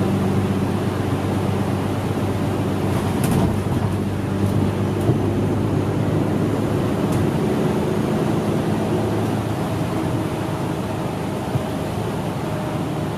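City bus engine droning steadily, heard inside the cabin, under a constant hiss of tyre and road noise on a wet road.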